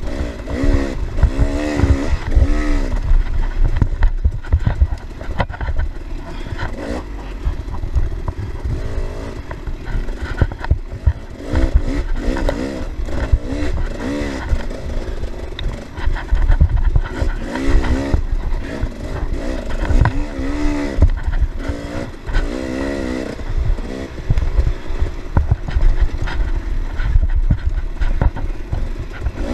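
Dirt bike engine revving up and falling back over and over as the rider works the throttle, heard from on the bike itself. Knocks and rattles and a low rumble come from the bike bouncing over rough trail.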